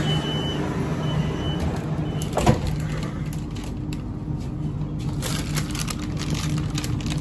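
Metro train carriage with a steady low hum. A high door-warning beep repeats about once a second and stops after two seconds, followed by a single knock about two and a half seconds in, as the doors shut.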